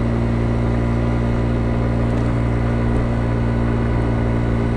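Kymco Agility 50 scooter's 50cc carbureted single-cylinder engine running at a steady pitch while riding, heard from the rider's seat. It is a cold engine still warming up, now pulling without bogging.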